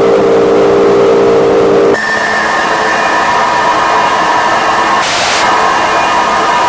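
Electronic harsh noise music: loud, dense noise laid over several steady droning tones. The cluster of tones switches abruptly to a higher set about two seconds in, and a brief burst of hiss comes near the five-second mark.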